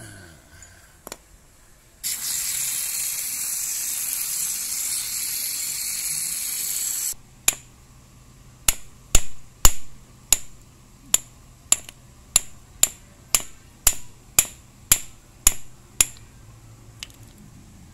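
A steady spray hiss for about five seconds that cuts off sharply, then a removed, leaking clutch slave cylinder from a Toyota Corolla knocked open-end down on a steel hammer head: about sixteen sharp metal knocks, roughly two a second, to drive its piston out of the bore.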